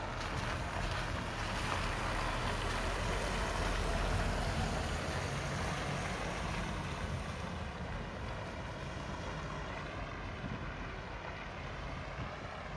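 Wind blowing through falling snow and buffeting the microphone, a steady rush over a low rumble; the rush eases about seven seconds in.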